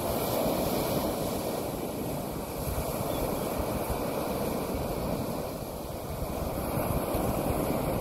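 Ocean surf breaking on a sandy beach and washing up the shore: a steady rushing noise that swells and eases with the waves.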